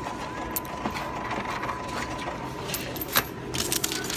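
Plastic shopping bags being handled on a metal checkout bagging rack: scattered metallic clicks and rattles, with one sharper clack about three seconds in. A faint steady high tone sounds through the first two-thirds.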